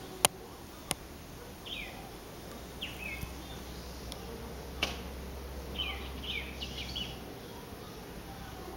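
Galahs heard through a glass door giving short chirping calls that fall in pitch: one alone, then another a second later, and a quick run of them a little past halfway. Three sharp taps cut in, the loudest right at the start.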